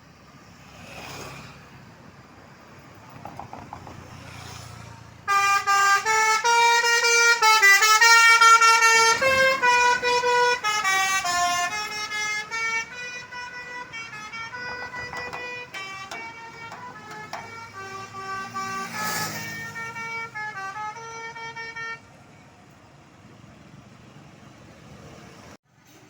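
A bus's basuri musical 'telolet' horn playing a quick tune of changing notes, starting suddenly about five seconds in, loudest at first, and cutting off abruptly some seventeen seconds later, over low traffic noise.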